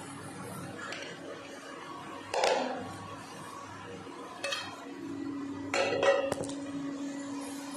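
Metal kitchen utensils clattering against a metal pot: one clatter about two and a half seconds in, another near four and a half seconds, and a quick run of clinks around six seconds. A steady low hum starts about five seconds in.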